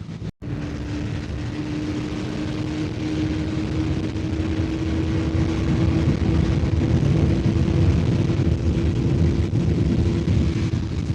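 Bajaj Pulsar NS400Z's single-cylinder engine running at steady revs while riding, with a rush of wind and road noise over it. The sound drops out for a split second just after the start.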